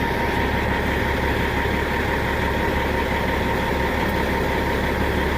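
Engine of a piece of logging equipment idling steadily just after being started, with a thin steady whine over the low running sound.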